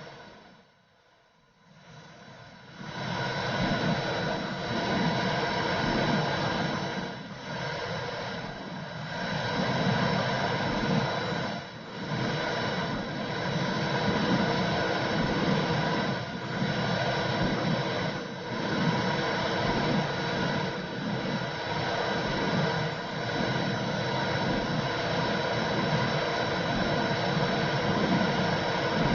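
Womb sound for soothing a baby: a steady whooshing noise like muffled rushing blood, quiet at first and coming up to full level about three seconds in.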